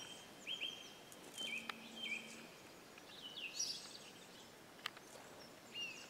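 Faint bird calls: short high notes, each with a quick flick in pitch, repeated several times at irregular intervals, with a couple of sharp single clicks between them.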